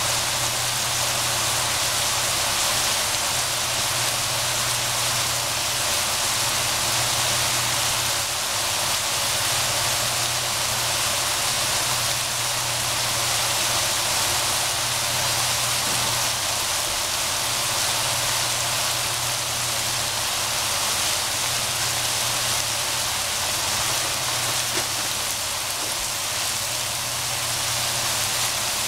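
Vegetables frying in a pan: a steady sizzling hiss, with a low steady hum underneath.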